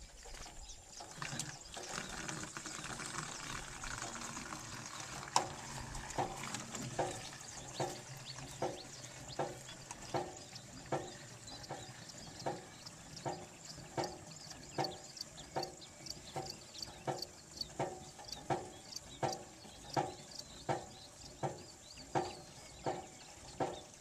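A newly installed hand water pump being worked with a steady rhythm of strokes, a little faster than once a second, with running water. The stroking starts a few seconds in.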